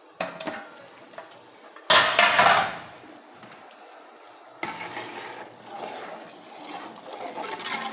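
Kitchen handling noise: pots and utensils scraping and clattering, with a loud rasping burst lasting under a second about two seconds in.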